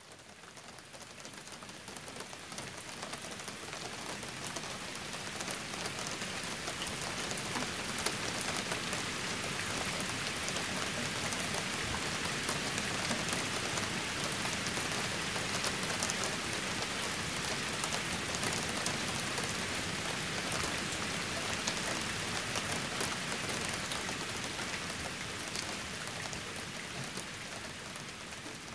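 Steady rain falling, an even patter of drops that fades in over the first few seconds and eases slightly near the end.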